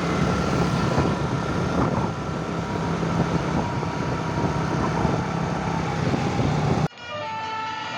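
Heavy vehicle engine running steadily amid loud road noise. The sound cuts off abruptly near the end, giving way to a quieter passage with a few steady tones.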